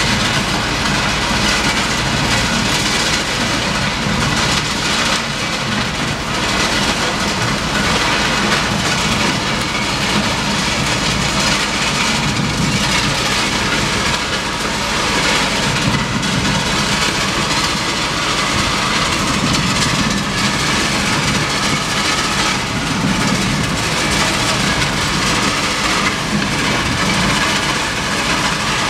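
A railway ballast regulator working: its diesel engine running steadily under a dense, continuous rush of the rear broom sweeping and flinging ballast stones off the ties.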